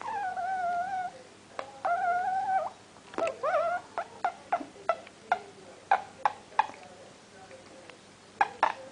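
Wheaten terrier making three drawn-out, whine-like calls: the first two are held on a steady pitch for about a second each, and the third is shorter and wavers upward. A run of short sharp clicks follows.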